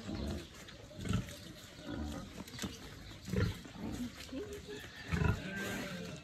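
Pigs grunting: several short, low grunts about a second apart.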